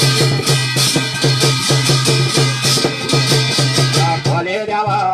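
Garhwali jagar devotional music: a fast, steady drum beat under steady held instrumental tones, with a singing voice coming in near the end.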